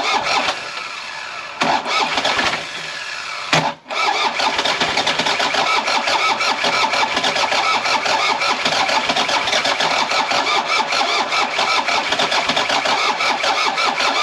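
Takeuchi excavator's diesel engine cranking on the starter in a fast, even rhythm, trying to fire but not catching. There are a few short cranks in the first four seconds, then one long unbroken crank from about four seconds in. The engine almost runs, though one injector is seized in the head.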